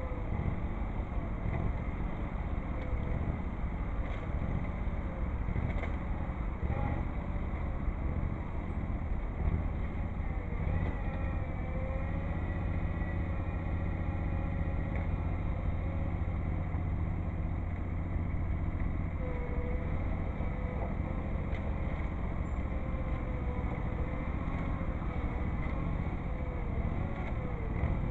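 Tractor engine running steadily: a continuous low engine drone with no change in speed.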